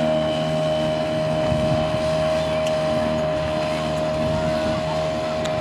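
Outboard motor of a small boat running steadily: an even engine hum that keeps the same pitch throughout.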